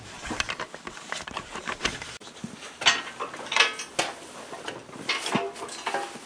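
Metal clicking and clinking: hydraulic hose quick-couplers being handled, then a run of sharper clinks with a short metallic ring from the hook and hardware on the steel boom pole as it is raised.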